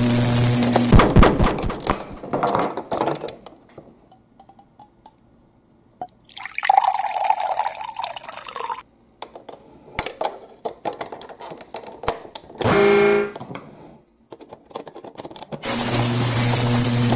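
Water poured from a clear cup into the plastic water tank of a toy Thomas the Tank Engine for about three seconds, among clicks of plastic being handled. A steady whirring noise cuts off about a second in and starts again near the end.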